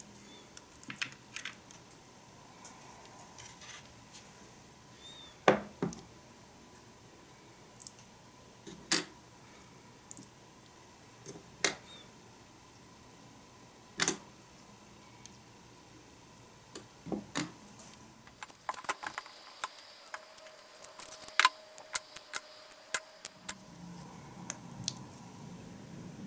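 Hard plastic mold parts and jelly pieces being handled and set down, making scattered single clicks and knocks a few seconds apart, then a quicker run of small taps and clicks near the end.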